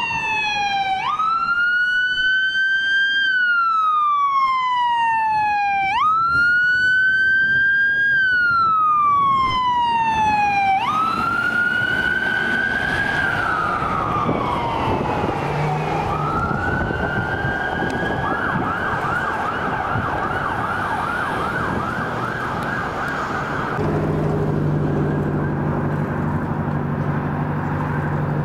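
Fire department emergency vehicle siren on wail: a quick rise and a slow fall, repeating about every five seconds. About eighteen seconds in it switches to a rapid yelp. Near the end a steady low hum takes over.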